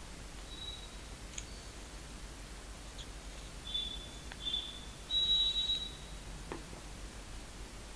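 Low steady background hiss with a few short, high-pitched chirps, the longest and loudest about five seconds in, and a couple of faint clicks.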